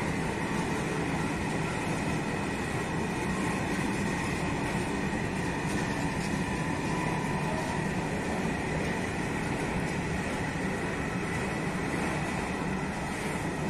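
Long freight train of hopper wagons rolling past, wheels on rail making a steady rumble with a faint high whine held over it.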